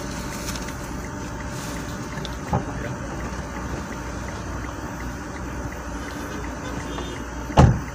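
Steady low rumble inside a taxi's cabin with the engine running, a light knock about two and a half seconds in, and a loud thud near the end: a car door shutting as a passenger gets out.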